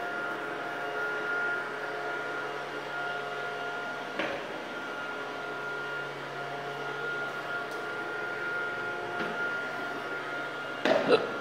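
Fan of a battery-powered air hover soccer disc whirring steadily with a high tone as the disc floats on its air cushion. A light click about four seconds in, and a quick cluster of louder knocks near the end.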